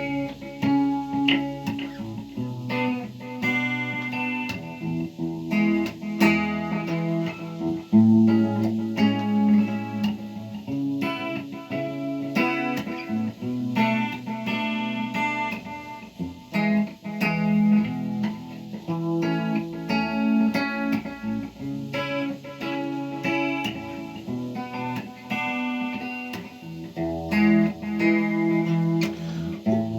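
Ibanez AS53 semi-acoustic electric guitar played on a clean tone with a little delay and a slight touch of reverb, single notes and chords ringing out continuously.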